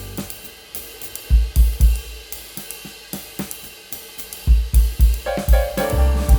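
Background music with a drum-kit beat of cymbals, hi-hat and snare. The bass and melody drop out for a few seconds, leaving mostly drums, then come back in about four and a half seconds in.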